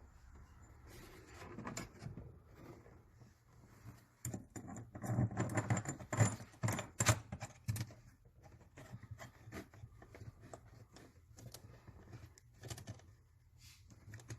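Small metal clicks and rattles of a retaining nut being threaded by hand onto a car's rear-hatch key lock cylinder, thickest and loudest about four to eight seconds in.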